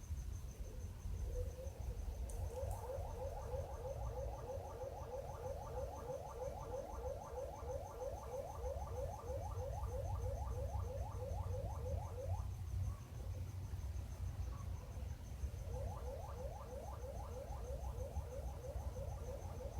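A weird repeating noise: a fast, even series of short rising chirp-like notes, about four or five a second. It stops for a few seconds midway, then starts again. Its source is unidentified.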